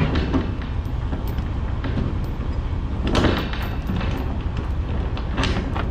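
Ratchet binder being cranked to tighten a load chain: metal clicking and chain clinking, with louder bursts about three seconds in and near the end, over a steady low rumble.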